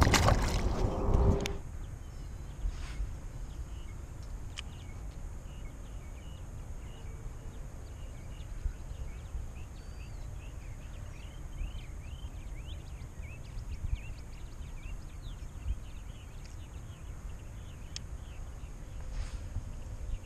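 Small birds chirping over a steady low rumble of wind, outdoors at a pond, with a short burst of noise in the first second or so and a few faint clicks later on.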